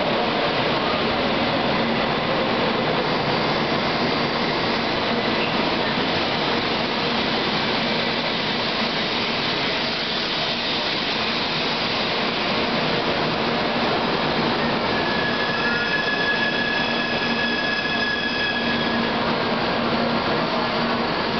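Tokaido Shinkansen bullet train gliding into the platform and slowing, a steady rushing rumble of wheels on rail. About two-thirds of the way in, a high, steady whine of several tones sets in as the train nears a stop.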